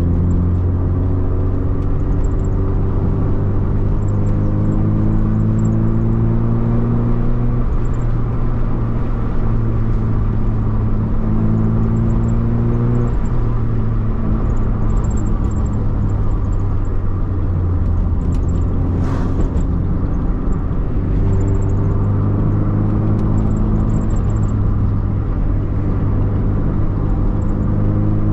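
Vehicle engine under way, its pitch climbing steadily and then dropping back at each gear change, several times over, over steady road rumble. A brief hiss comes about two-thirds of the way through.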